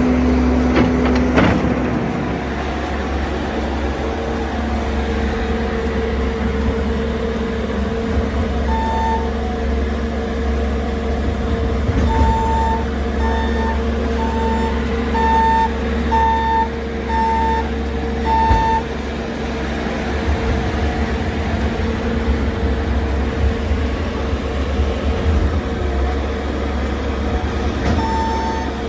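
A heavy vehicle's engine running steadily, with its reversing alarm beeping about once a second for several seconds in the middle and again near the end.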